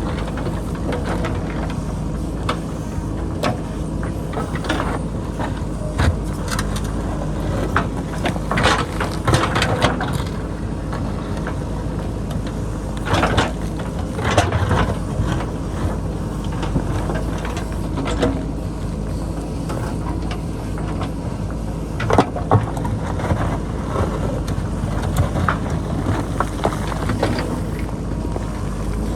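JCB backhoe loader's diesel engine running steadily under load while it digs into rocky hillside, with repeated knocks and scrapes of the bucket against stone and boulders, heaviest in a few clusters.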